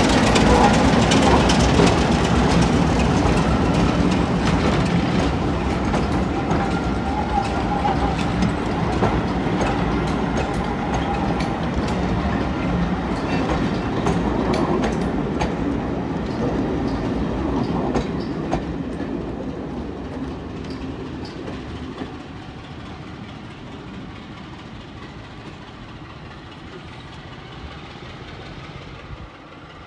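BR Class 33 diesel locomotive 33002, with its Sulzer eight-cylinder engine, passing with a rake of coaches. Its engine gives way to the rumble and clickety-clack of coach wheels over rail joints, fading steadily as the train draws away.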